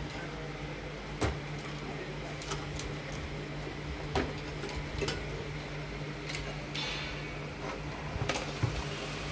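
Wires and plastic connectors being handled inside an opened DVD home-theatre unit: a few scattered small clicks and knocks at irregular intervals, the sharpest about a second in and about four seconds in. A steady low hum runs underneath.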